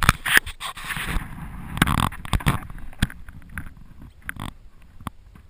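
Rustling, then a series of sharp knocks and clicks, as of gear being handled around a kayak.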